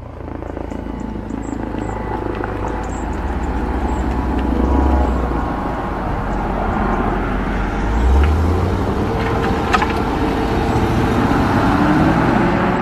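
A dark SUV driving past at low speed, its engine and tyres running steadily with rumble that swells twice. Near the end the engine note rises as it pulls away.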